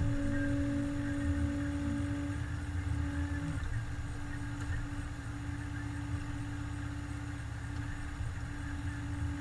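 Volvo EC27 mini digger's diesel engine running steadily while it works a grading beam, with a steady whine over the engine that weakens about three and a half seconds in.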